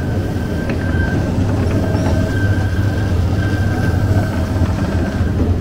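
Bakery dough divider machine running with a steady low hum and a high squeal that comes and goes every second or two as it pushes out and cuts portions of bread dough, with a few faint clicks.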